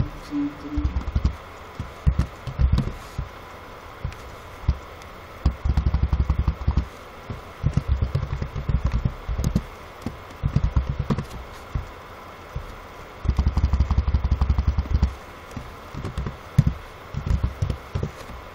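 Computer keyboard typing: quick runs of keystrokes with short pauses between.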